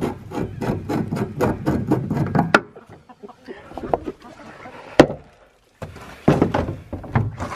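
Wooden and metal knocks and clatter from boards and a wire feeder being handled: a rapid run of short knocks, a single sharp, loud knock about five seconds in, then more clatter near the end.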